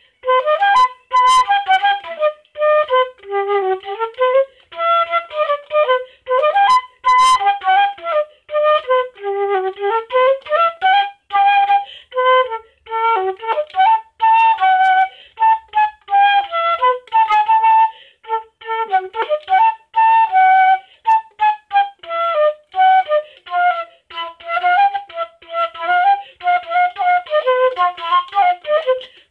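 Yamaha YFL-22 silver flute played solo, a tune of short and held notes rising and falling in its low and middle range, in phrases with brief breaks for breath.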